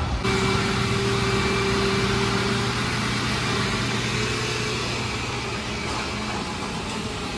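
Steady mechanical hum: a low drone under an even hiss, with a higher steady tone that fades out about three seconds in.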